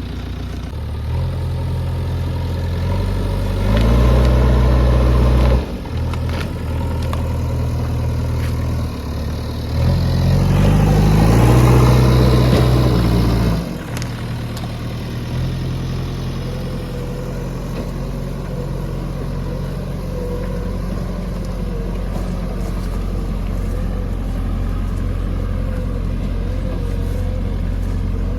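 JCB 3DX backhoe loader's diesel engine working. It revs up hard twice, as the hydraulics take load, and drops back sharply each time, then runs steadily.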